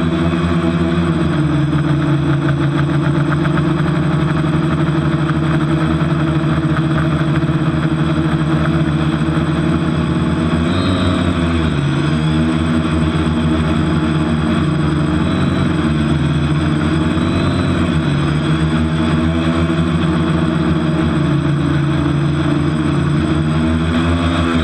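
TBS Discovery quadcopter's brushless motors and propellers buzzing steadily in flight, heard from the onboard camera, with the uploader noting one propeller is damaged. The pitch dips and recovers about halfway through and again at the very end as the throttle changes.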